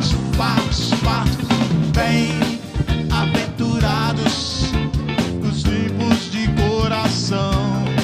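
Live band music: guitar and other instruments playing over a steady drum beat, with a wavering lead melody line.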